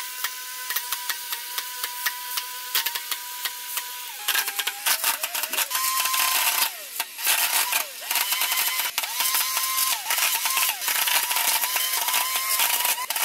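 Homemade toothpick gun's small DC motor whining as it spins its launching disc, with rapid, irregular clicks as toothpicks are fired into a foam wall. About four seconds in the clicking grows denser and louder, and the motor's whine dips in pitch now and then under the load of firing.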